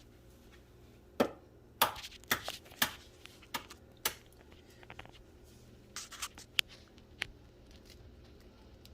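A series of sharp taps and knocks, about a dozen spread irregularly over several seconds: eggs being knocked against a bowl's rim to crack them.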